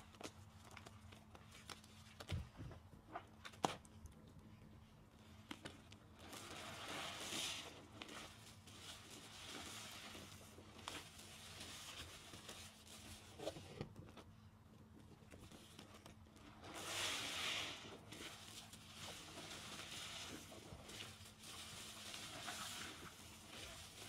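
Car sponges full of thick, creamy soap foam being squeezed by hand: wet squelching and crackling of the suds in several long squeezes, with a few sharp clicks in the first seconds.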